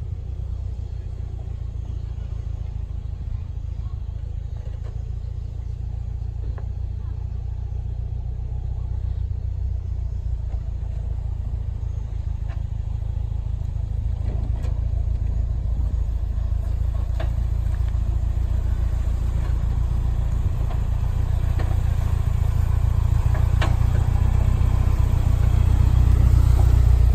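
Toyota 4Runner's engine running low and slow as the truck crawls down a rutted clay trail, its low rumble growing steadily louder as it comes closer. A few light knocks sound in the second half.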